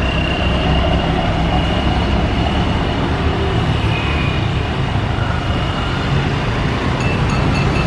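Twin rear-engined regional jet on final approach, heard as a steady low rumble with a faint high engine whine over it.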